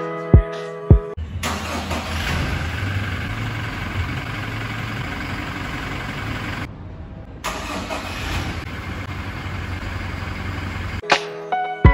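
A car engine starting abruptly and then running steadily at idle, with a strong low hum. It cuts out briefly about seven seconds in and stops near the end. Short snatches of music come just before the engine starts and again right after it stops.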